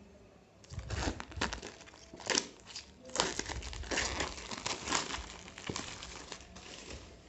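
Clear plastic wrap being pulled off a smartphone box, crinkling in quick irregular bursts that start about a second in and die away near the end.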